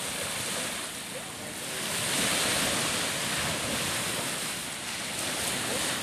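Sea waves washing in the shallows, with wind rushing over the microphone; the sound grows louder about two seconds in.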